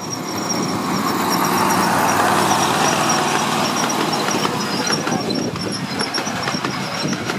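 Engine of a ride-on miniature railway locomotive running steadily as it hauls a train of passenger cars. Its wheels click over the rail joints in the second half.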